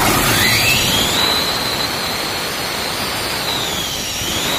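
Hino diesel engine running and revving, with a high whine that climbs over the first second, holds, dips briefly near the end and climbs again. The injection pump has just been refitted and its timing is not yet set.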